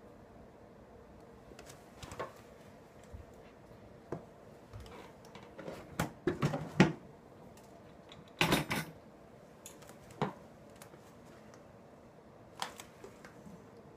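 Scattered sharp clicks and light knocks, singly and in short quick clusters, the busiest stretch about halfway through.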